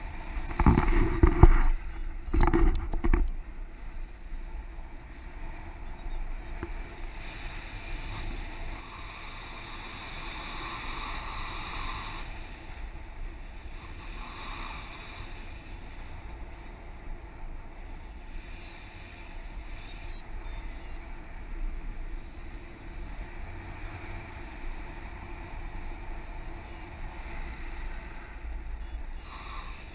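Wind rushing over the camera microphone during a tandem paragliding flight, with heavy buffeting in the first three seconds, then a steady rush.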